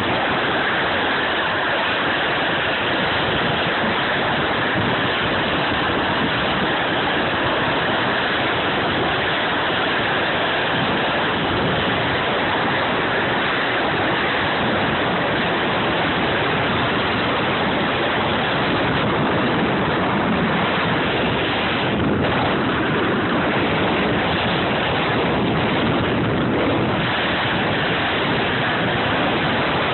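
Steady rushing noise of wind on a phone microphone mixed with the scrape of a rider sliding downhill over snow.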